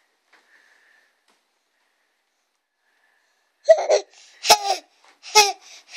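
Baby laughing in short, high-pitched bursts: three giggles starting about three and a half seconds in, with another beginning at the end.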